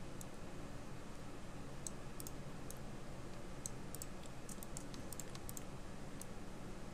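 Faint, irregular clicks of a computer keyboard and mouse being used, over a steady low hum.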